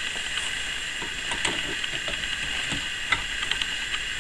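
Scattered light clicks and scrapes from a pipe cutter's screw being turned to tighten its cutting wheel down onto a wire, over a steady hiss.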